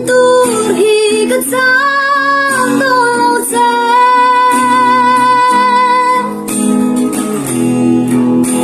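Music: a woman singing a melody over plucked guitar, holding one long note through the middle.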